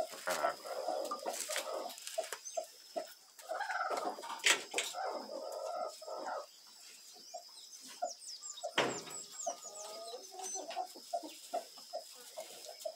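Chickens clucking: many short clucks with a few longer drawn-out calls among them. There are two sharp knocks, about four and a half and nine seconds in, and a faint steady high whine underneath.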